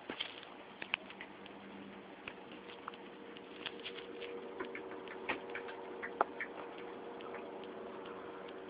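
Scattered light clicks and taps at irregular intervals, over a faint steady hum.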